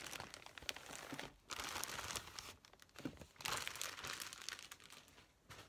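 Plastic packaging crinkling as it is handled, in several bouts about a second long each.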